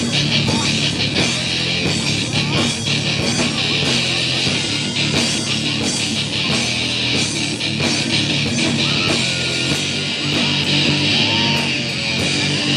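Live rock band playing an instrumental passage: electric guitar and electric bass over a drum kit keeping a steady beat.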